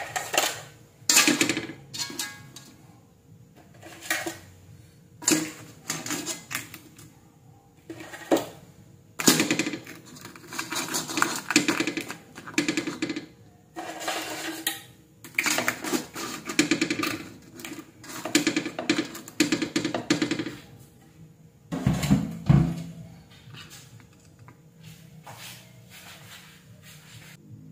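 Blue swimming crabs being dropped and arranged in an aluminium wok: repeated bursts of clattering and scraping of shells and legs against the metal, one every second or two, over a faint steady hum.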